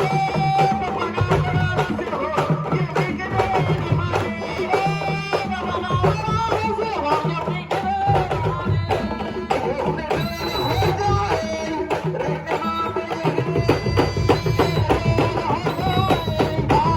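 Traditional music: rapid hand drumming with a singing voice over it.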